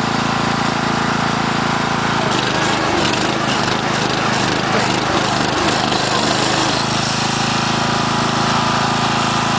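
Small lawn mower engine running steadily, then turning rough and uneven with knocking for about four seconds in the middle, before settling back to a steady run.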